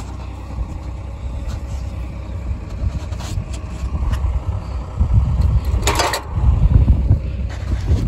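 A vehicle engine running with a steady low rumble. A short hiss cuts in about six seconds in.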